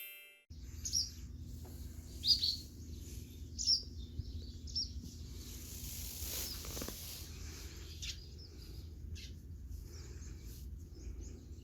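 Birds chirping in short, high calls, loudest in the first few seconds, over a steady low background rumble.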